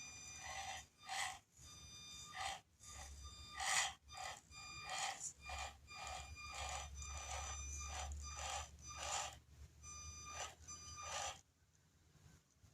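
Axial SCX24 mini RC crawler's small electric motor and drivetrain whining in short, repeated bursts as the throttle is blipped on and off while the truck climbs slowly. The bursts stop shortly before the end.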